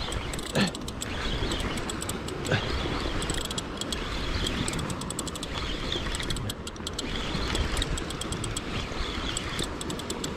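Daiwa Saltiga 8000 spinning reel ticking in rapid bursts of about a second while a hooked fish pulls on the line, over a steady low rumble.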